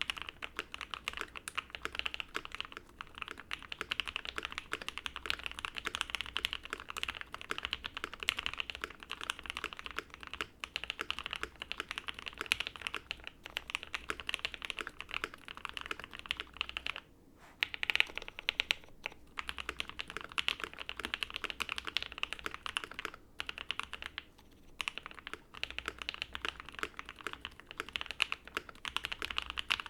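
Continuous fast typing on a custom mechanical keyboard: OwLabs Jelly Epoch with Banana Splits switches lubed with Krytox 205g0, on a POM plate with PE, plate and case foam, giving muted, smooth keystrokes. The typing pauses briefly twice, with a few louder strokes just after the first pause.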